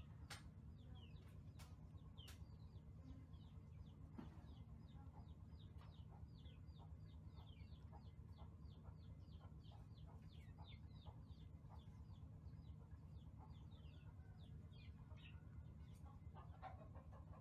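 Faint, continuous peeping of chicks: many short, high chirps that fall in pitch, several a second, over a low steady hum.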